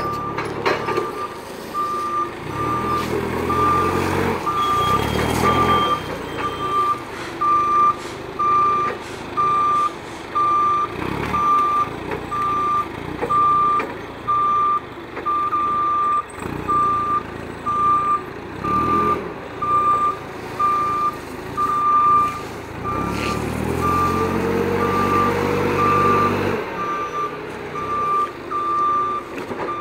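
Toyota propane forklift's backup alarm beeping at an even pace over its running engine, which revs up in surges, the longest near the end.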